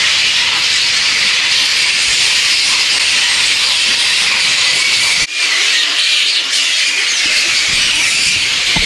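Steady, dense, high hissing din of a large flying-fox colony, the massed squeals and chatter of thousands of fruit bats. It drops out for an instant about five seconds in.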